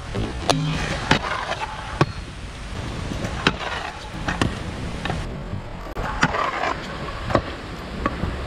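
Skateboard wheels rolling over pavement, broken by several sharp clacks of the board popping and landing.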